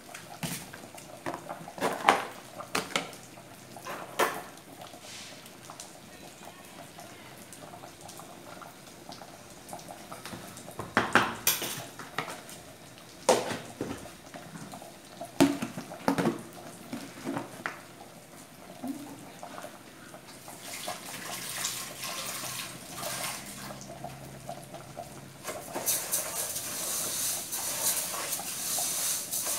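Clinks and knocks of a metal cooking pot, lids and utensils being handled, several sharp ones spread through the first half. From about two-thirds of the way in comes a watery swishing that grows steadier and louder near the end: a wooden spoon stirring rice in water in the pot.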